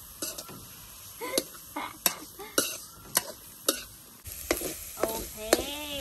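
Metal spatula stirring and scraping frog meat frying in oil in a metal wok, clinking against the pan about twice a second. The oil sizzles louder from about four seconds in.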